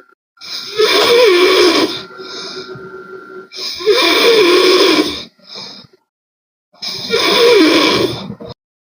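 A person snoring hard: three loud snores about three seconds apart, each lasting about a second and a half with a wavering pitch, and quieter breaths between them.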